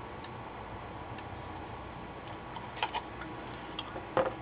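Light clicks and knocks from a printed circuit board being handled and turned over on a workbench: two soft clicks about three seconds in, then a sharper cluster of knocks near the end as it is set down, over a steady faint hiss.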